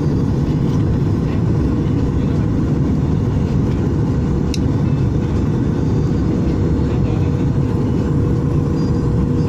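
Steady jet cabin noise inside a Boeing 737 MAX 8 on approach: a loud low rumble from its CFM LEAP-1B engines and the airflow, with a steady hum over it. A brief click sounds about halfway through.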